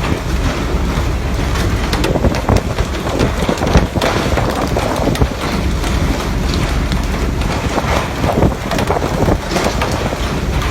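Splashing, rushing water over steady wind noise on the microphone, with irregular surges of splashing.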